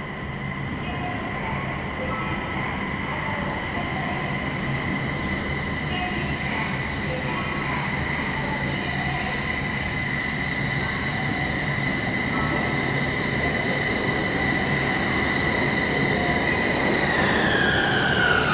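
Kobe Subway 5000 series linear-motor train pulling into the station. A steady high whine from its drive rises slowly in level over the running noise as it approaches, then falls in pitch near the end as it slows.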